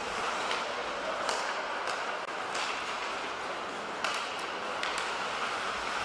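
Live ice hockey play heard from the rink: a steady scraping rush of skates and arena noise, with several sharp clacks of sticks striking the puck.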